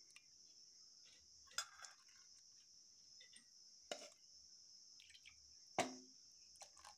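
Steel ladle clinking against a steel mixer jar and steel bowl as mashed curd is scraped and poured into milk: four short separate taps, the loudest about six seconds in. A steady high chirring of crickets runs underneath.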